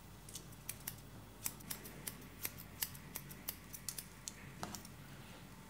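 Hairdressing scissors snipping through a child's hair: a quick run of short, sharp snips, about four a second, that stops shortly before the end.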